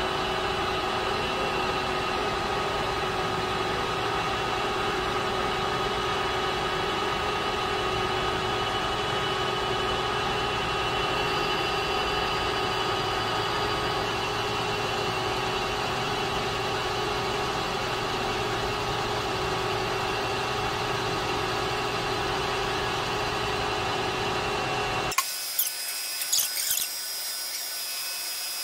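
Manual metal lathe running steadily, its motor and headstock gearing giving an even hum of several constant tones. Near the end the sound changes abruptly to a quieter spindle turning at 800 RPM, with a few short scraping clicks as the tool cuts down the diameter of a nylon plug.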